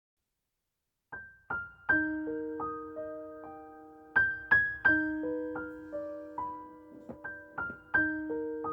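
Slow piano music: notes struck one after another and left to ring, starting after about a second of silence.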